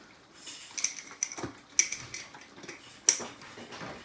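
Spice containers and kitchen utensils handled while seasoning fish: a series of sharp clicks and small ringing clinks, the loudest about two and three seconds in.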